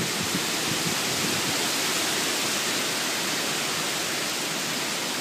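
Heavy wind-driven rain pouring steadily onto wet pavement, an even hiss.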